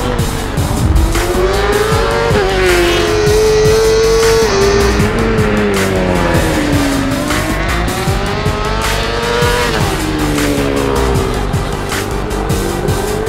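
Honda CBR1000RR Fireblade SP2 superbike's inline-four engine revving hard on track, its note climbing under acceleration and falling on the brakes several times, with a sudden drop about ten seconds in. Background music with a steady beat plays underneath.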